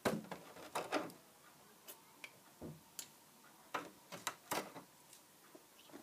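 Irregular clicks, knocks and rattles of a freezer's wire rack and frozen food packages being handled by a small child, in scattered clusters with the loudest about a second in and around four seconds in.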